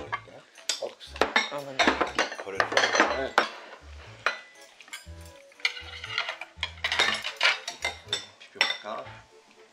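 Metal ladle scooping stew from a pan and serving it into bowls, with repeated clinks and scrapes of metal against the pan and the ceramic bowls.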